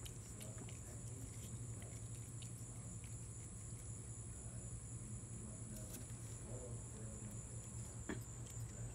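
Cat licking and chewing at a slice of watermelon, faint scattered ticks, over a steady low hum.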